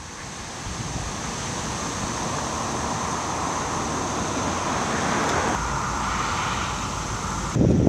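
Outdoor street ambience: a steady wash of road traffic noise with a constant high-pitched tone over it. It fades in at the start and changes abruptly twice, near the end turning into a louder low rumble.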